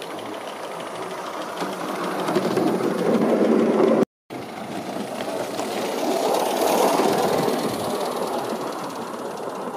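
Small live-steam garden-railway railcar running along the track with a hissing, rattling sound. It swells as it passes and fades, cuts off briefly about four seconds in, then swells and fades a second time.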